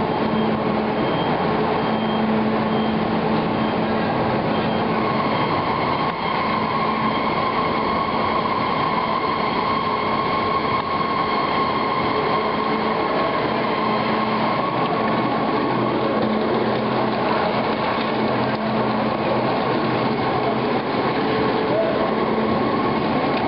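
Natural-rubber processing line running steadily: the conveyor belt and cup-lump crushing machinery make a continuous mechanical din with a steady low hum and a higher whine that grows stronger about five seconds in.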